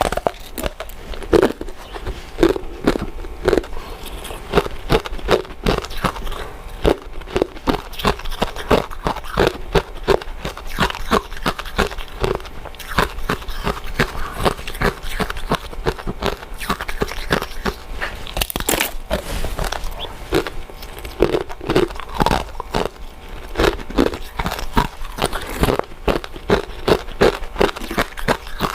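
Close-miked chewing of soft, chewy glutinous rice desserts: steady eating with a dense, irregular run of short mouth clicks and smacks.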